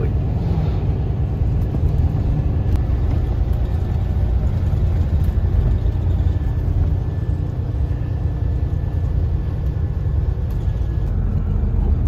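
Bus engine and tyre noise heard from inside the passenger cabin while the bus is moving: a steady low rumble.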